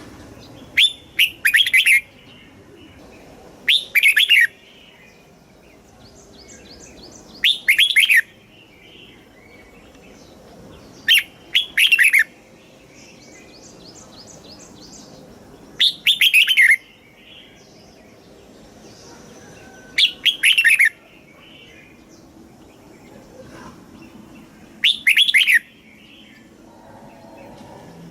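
Red-whiskered bulbul singing, repeating its short, loud song phrase about every four seconds, seven times. Softer rapid high chirps sound between some of the phrases.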